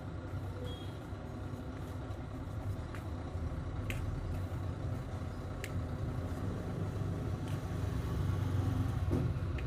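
Steady low mechanical hum, like a running motor, with a few faint clicks.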